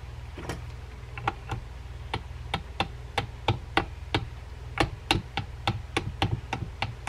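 Small hammer giving a pin in a vintage Ocean City 609 Big Game reel's gear sleeve a long run of light taps, about two to three sharp taps a second.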